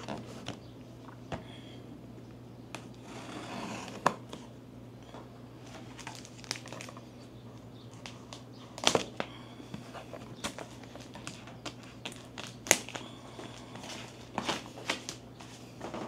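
Packaging being handled during an unboxing: plastic crinkling and rustling, with scattered sharp clicks and taps, the loudest about nine and thirteen seconds in.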